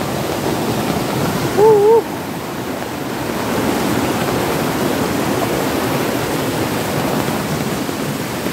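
Steady rushing of a small stream running high and muddy after heavy rain. About two seconds in, a brief wavering pitched sound rises above it.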